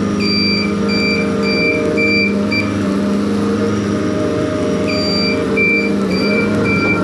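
JCB compact track loader reversing, its back-up alarm beeping about twice a second in two runs with a pause of about two seconds between them. Under it, diesel engines running steadily.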